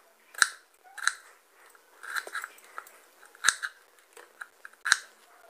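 Knife cutting raw peeled potatoes into chunks on a wooden chopping board: a handful of separate crisp crunches as the blade goes through and taps the board, unevenly spaced, with small ticks in between.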